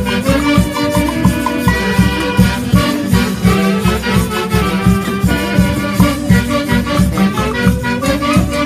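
Live brass band of saxophones and trumpets with a bass drum and drums, playing a lively Latin American tune over a quick, steady beat.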